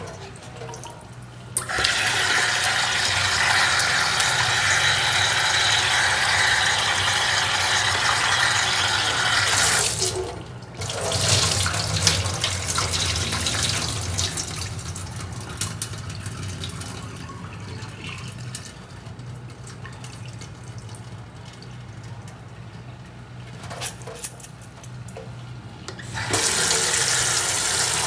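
Tap water running into a sink, starting about two seconds in. It stops briefly about ten seconds in, then runs more softly and comes back louder near the end.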